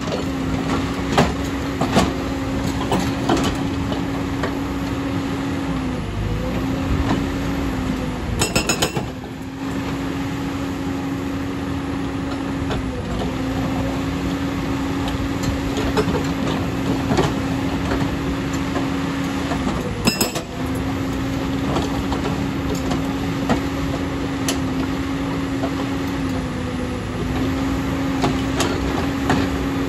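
JCB tracked excavator breaking rock with its hydraulic breaker. A steady mechanical drone from the machine runs throughout and dips briefly several times as the hammering pauses. Irregular sharp knocks and metallic clanks sound over it, two of them louder, about a third of the way in and again about two thirds in.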